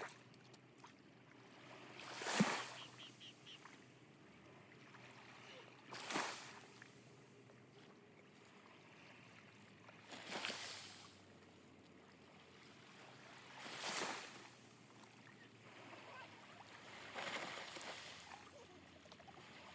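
Small sea waves washing onto the shore, one soft rush about every four seconds, each swelling and falling away over about a second.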